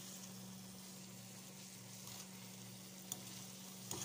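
Saucy instant noodles with chicken and greens sizzling faintly in a non-stick frying pan as the sauce cooks down, with a spatula stirring and a couple of sharp clicks against the pan in the second half. A steady low hum runs underneath.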